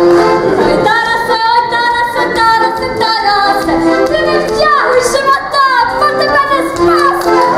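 A woman singing a lively Ukrainian folk tune with music, her long held notes wavering in pitch.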